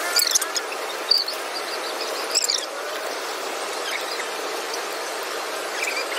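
Steady dining-area background noise, dotted with short, high-pitched chirps and squeaks.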